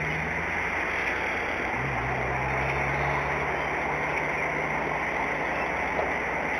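Steady rain falling on the nest and branches, an even hiss with a faint low hum underneath.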